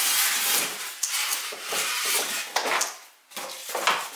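Packaging rustling and scraping as a long electric grill plate is slid out of its box, in several surges with a short break about three seconds in.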